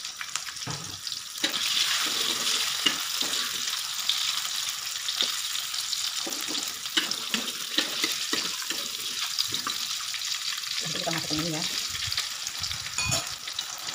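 Sliced shallots, garlic and egg white sizzling in oil in an aluminium wok, growing louder about a second and a half in. A metal spatula scrapes and knocks against the wok as the food is stir-fried.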